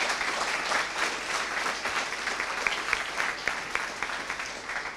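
Audience applauding, the clapping slowly dying away near the end.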